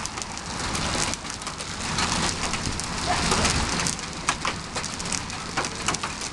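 Hail falling in a storm: a steady hiss with many irregular, sharp clicks of hailstones striking the concrete sidewalk, driveway and lawn.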